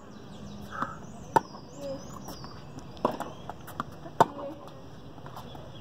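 Tennis balls struck by rackets in a baseline rally: sharp hits every second or so, the loudest about one and a half seconds and four seconds in, with fainter knocks of the ball bouncing on the hard court between them.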